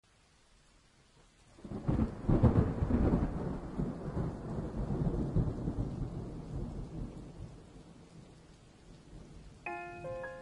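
A thunderclap breaks about two seconds in and rumbles away over the next several seconds. Piano notes begin near the end.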